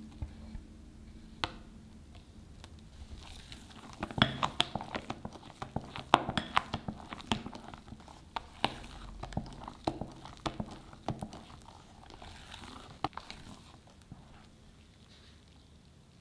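Silicone spatula folding chiffon cake batter (egg-yolk mixture into meringue) in a glass bowl: soft wet squelching with many irregular sharp clicks. The clicks are busiest from about four to eleven seconds in, then thin out.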